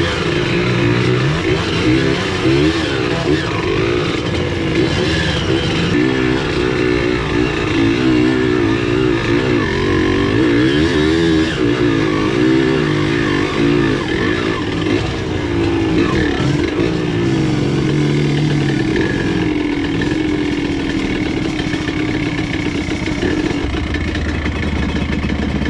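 Off-road motorcycle engine running under load on a trail, its pitch rising and falling with the throttle. It settles to a steadier, lower note near the end.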